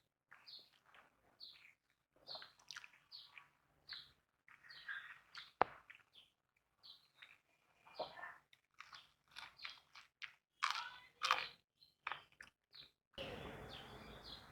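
A person chewing food close to the microphone, in short, irregular bursts of smacking and crunching with brief pauses between. Near the end a steady background with birds chirping comes in.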